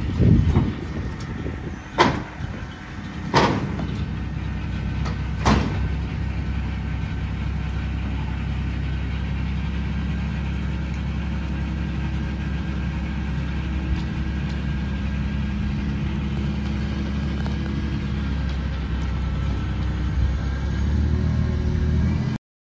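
Compact tractor engine running steadily under load, with three sharp bangs in the first six seconds as the torn patio cover is shifted. The sound cuts off abruptly near the end.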